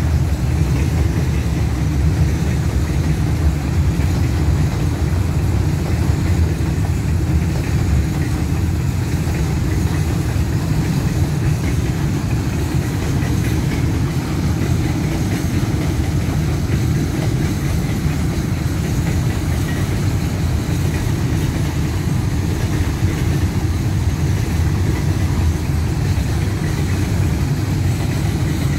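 Long freight train of container flat wagons rolling past close by: a steady, loud low rumble of wheels on the rails.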